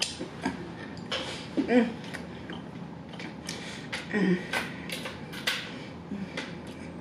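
Close-miked eating sounds from a fried-chicken mukbang: wet mouth clicks, lip smacks and finger licking, with two brief hummed murmurs about two and four seconds in.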